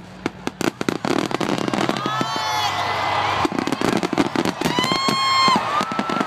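Fireworks finale: shells bursting in a rapid, dense barrage of bangs and crackling, several bangs a second. High cries fall in pitch over it about two seconds in and again about five seconds in.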